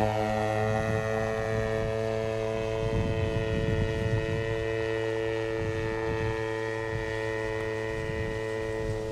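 Engine of a 1:5 scale radio-controlled Stearman PT-17 model biplane in flight: a steady droning note at flying power that slowly fades as the model climbs away.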